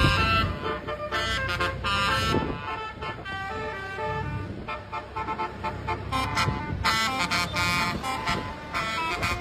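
Basuri multi-tone 'telolet' horn playing a quick stepping melody of horn notes, with an engine rumbling underneath for the first couple of seconds.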